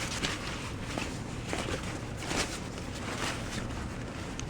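Rummaging through boxes and handling items: scattered soft rustles with a few light knocks.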